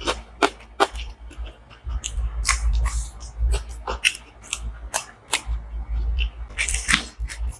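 Close-miked eating of butter chicken with paratha: chewing with irregular wet mouth clicks and smacks, several close together about a second before the end.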